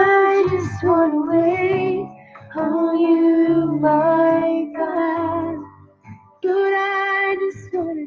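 A young woman singing a slow worship song, holding long wavering notes, in three phrases with short breaks between them.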